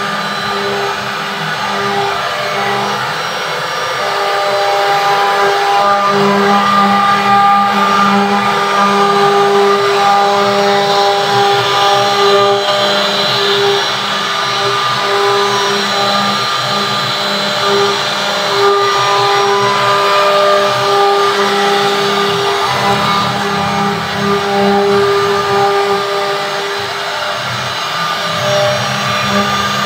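CNC router spindle running steadily as its cutter carves a wooden relief panel: a loud motor whine of several pitches over a steady hiss, the tones fading in and out as the cut goes on.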